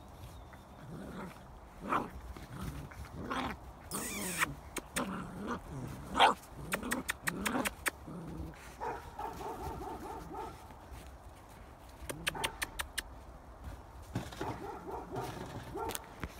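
Puppies play-fighting, yapping and growling in short bursts, with the loudest bark about six seconds in.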